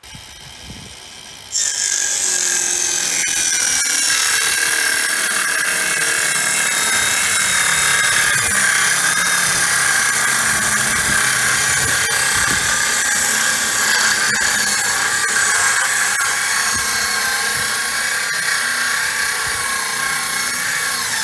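Circular saw cutting through plywood sheet: a quieter running start, then about a second and a half in the sound jumps loud as the blade cuts and holds steady with a high whine.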